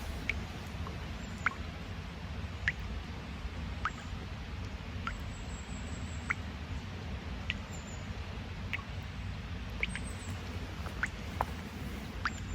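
Water drops plinking into a pool at a forest spring, short bright pings at irregular intervals about once a second, over a low steady rumble.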